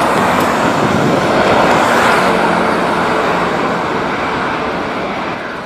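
Jet engines of a Lion Air airliner running at high power as it moves along the runway: a loud, steady rush of noise that starts to fade near the end.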